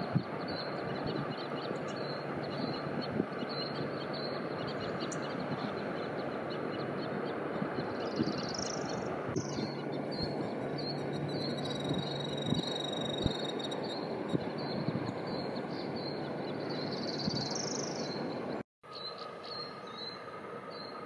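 Steady rushing outdoor background noise, with a rapid run of short high chirps over it and a few longer high whistled notes in the middle. The sound drops out for a moment near the end.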